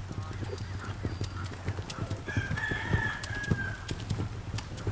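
Hoofbeats of several horses cantering on soft arena dirt, an uneven stream of dull thuds. Near the middle a single drawn-out animal call rings out for about a second and a half, slightly falling at its end.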